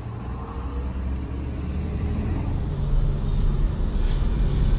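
Motorhome driving at highway speed, a steady low road and engine rumble heard from inside the cab, growing louder about three seconds in.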